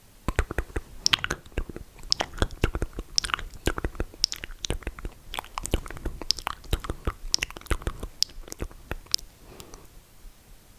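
Close-miked mouth sounds: a quick, irregular run of wet lip smacks and tongue clicks, several a second.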